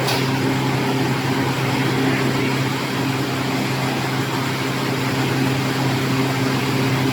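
Electric silage baler and stretch-film wrapping machine running, a steady motor hum with mechanical noise.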